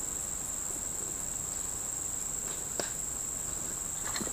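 Insects buzzing steadily at a high, even pitch, with one faint click about three seconds in.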